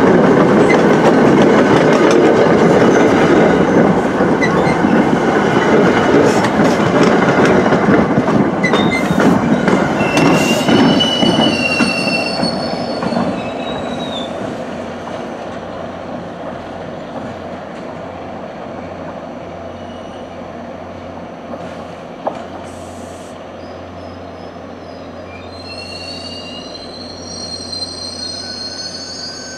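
MBTA commuter train rolling on the rails, loud for the first dozen seconds and then fading. High-pitched wheel squeals come about ten seconds in and again near the end, as the cab car comes around the curve toward the platform.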